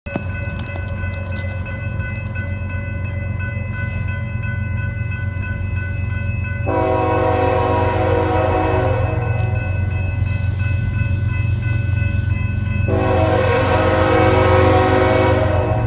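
BNSF diesel freight locomotive approaching, its engine rumble growing louder, sounding two long horn blasts for a grade crossing: one a little before halfway and one near the end. A grade-crossing bell rings steadily throughout.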